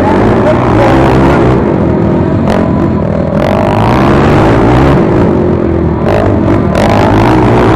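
Racing quad engines revving hard, the pitch climbing and falling again and again with the throttle and gear changes.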